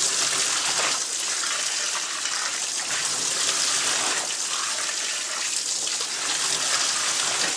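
Tap water running steadily into a utility sink, filling it.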